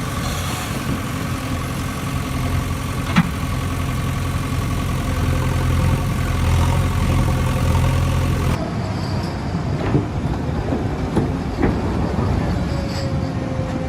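Heavy construction machine's diesel engine running steadily, with one sharp knock about three seconds in. Partway through, the sound cuts abruptly to a different engine running, with scattered clanks and knocks.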